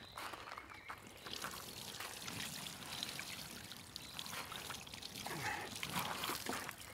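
Water pouring in a steady stream from a plastic watering can over a large mirror carp, splashing off the fish.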